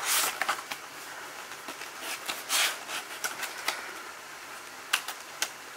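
Cardboard box and clear plastic blister tray of a trading-card collection box being handled and pried open: papery rustling and crinkling, loudest about two and a half seconds in, then a few short sharp clicks near the end.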